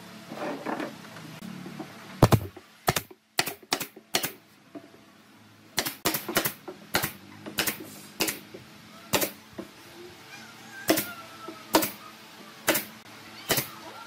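Pneumatic nail gun firing nails into wood, about seventeen sharp shots: quick runs of several shots about two seconds in and again around six seconds, then single shots roughly a second apart.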